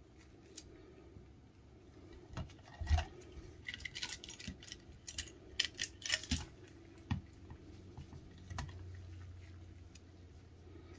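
Scattered sharp clicks, taps and rustles of a plastic tub and its snap-on lid being handled with nitrile-gloved hands, busiest through the middle of the stretch, the loudest knock about three seconds in.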